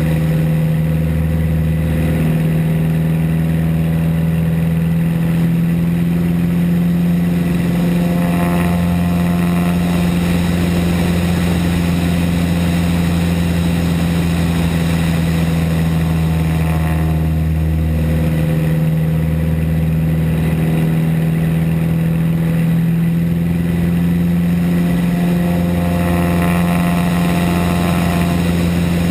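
Piston engine and propeller of a small RV aerobatic airplane running steadily, heard inside the cockpit. Its tone shifts slightly every eight or nine seconds as the airplane goes round the loops.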